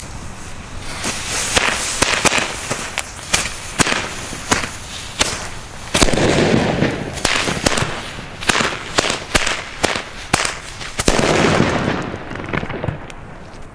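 A pack of black-powder Chipolas firecrackers going off on the ground. After a short hiss, a rapid, irregular string of sharp bangs starts about a second in, grows densest and loudest about halfway through and again near the end, then thins out.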